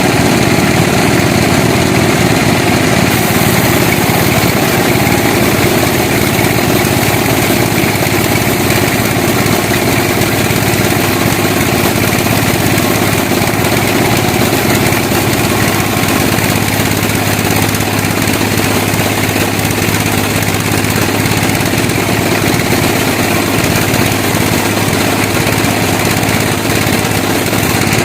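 Sawmill machinery running steadily with a continuous engine-like drone. A higher hiss sets in about three seconds in and carries on.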